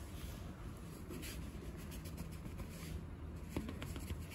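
Faint scratchy scuffing and rubbing in a few short spells over a low steady rumble, from boots shifting on concrete and a cat rubbing against them.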